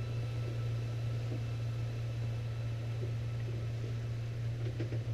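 Steady low hum of a vehicle's interior, with faint steady high tones over it and a few faint clicks near the end.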